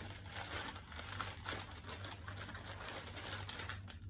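Handling noise from a Louis Vuitton Keepall bag being turned over and searched: canvas and leather rustling, with many small scrapes and clicks from its hardware. It stops suddenly near the end.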